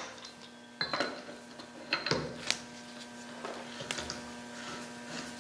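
Sharp metal clinks as a steel spindle nut socket goes into a Dana 60 front wheel hub, several in the first two and a half seconds, then lighter scraping ticks as it is worked onto the inner spindle nut.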